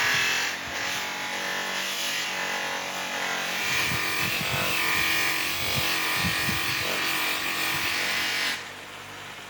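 Steady abrasive rubbing from shaping work on a knife handle, which stops suddenly about eight and a half seconds in.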